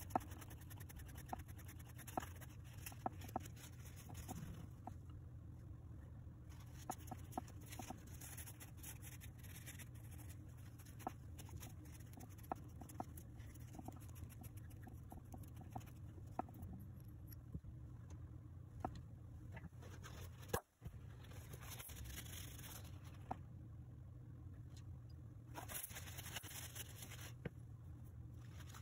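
Cloth rubbing and polishing a knurled brass screwdriver handle: soft scratchy rubbing that comes and goes, with scattered small clicks and taps of the brass pieces.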